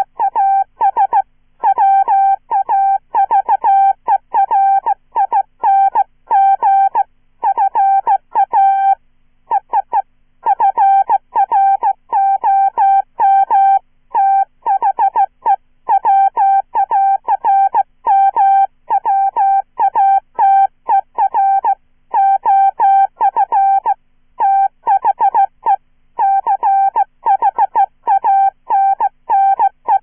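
Hand-sent Morse code at about 15 words per minute: a synthesized, chirpy beep keyed from a straight key in dots and dashes, each element starting with a slight pitch slide. Short gaps fall between letters and words, with a pause of about a second near the end of the first third.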